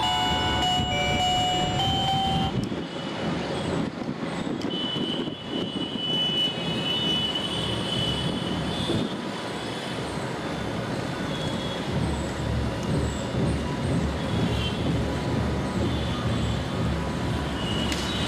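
Background music that stops about two and a half seconds in, followed by a steady low rumble of background noise.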